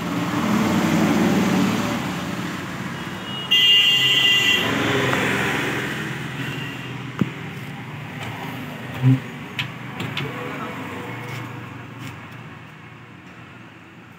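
Road traffic passing, with a short, loud high-pitched tone about three and a half seconds in, then a few sharp knocks and clicks.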